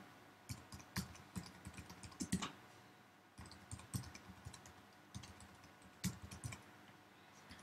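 Faint keystrokes on a computer keyboard, typed in uneven bursts with a short pause about three seconds in.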